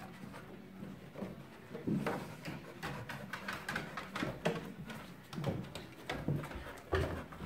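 Nova Scotia duck tolling retriever's paws and claws knocking and clicking on wooden stairs and floor in an irregular run of steps, with the dog panting.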